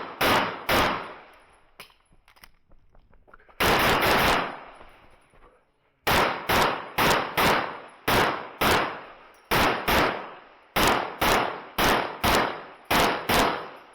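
Handgun fired rapidly in an IPSC practical shooting stage. Two shots come near the start, then a quick burst of about four shots around four seconds in. From about six seconds on there is a long string of shots, mostly in quick pairs (double taps).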